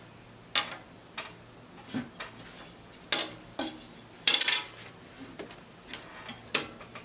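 A wooden ruler knocking and clattering on a hard, glossy table top as it is swung about and set down. It gives a series of sharp taps, with the loudest cluster about four seconds in.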